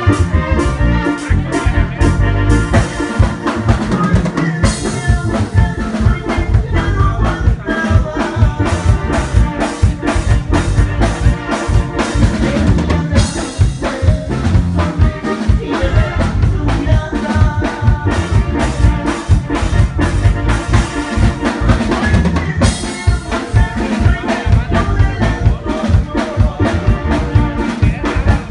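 A live band playing an upbeat Latin dance number. A drum kit keeps a driving beat under electronic keyboards, with a crash marking each section roughly every nine seconds.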